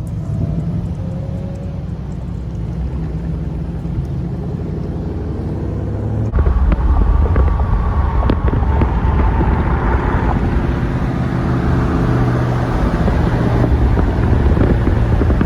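Car engine running with a deep, steady rumble. It grows sharply louder about six seconds in, as if the engine is revved or the car pulls away. This is most likely the Dodge Charger Scat Pack's 6.4-litre (392) HEMI V8.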